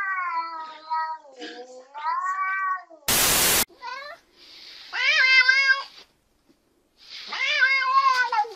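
Domestic cats meowing: a grey tabby's long, wavering yowl, then a ginger cat's two loud meows, the second drawn out and falling in pitch at the end. A half-second burst of hiss sits between the two, about three seconds in.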